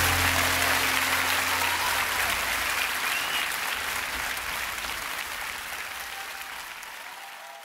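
Concert audience applauding at the end of a song, with a whistle or two, while the band's final chord dies away in the first second. The applause fades out gradually.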